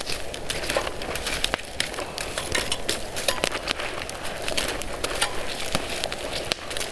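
Wood campfire crackling, with many sharp pops over a steady hiss.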